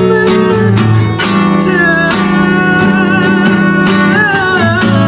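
Acoustic guitar strummed in steady chords while a man sings along, holding wavering sung notes through the second half.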